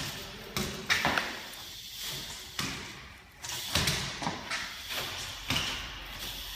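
BMX bike tyres hopping and landing on a concrete garage floor: several sharp thuds, spread unevenly, each echoing briefly.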